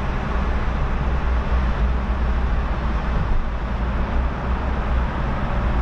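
Steady road and engine rumble inside a moving car driving through a road tunnel.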